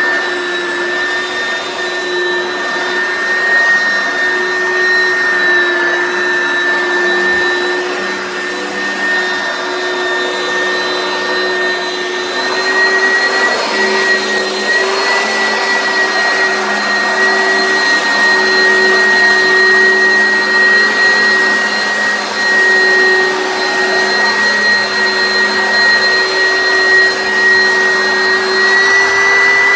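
Oreck upright vacuum cleaner running steadily, its motor giving a high whine over the rush of air. The whine wavers slightly and rises a little in pitch about twelve seconds in and again near the end.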